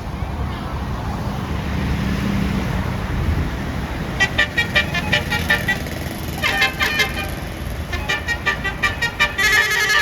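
A bus's low engine rumble, then from about four seconds in a Basuri 'telolet' multi-tone horn plays quick runs of short high notes in three bursts, the last the loudest near the end.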